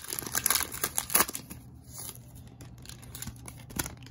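Plastic trading-card pack wrapper being torn open and crinkled. It crackles densely for about the first second and a half, then goes quieter with a few light clicks as the cards are handled.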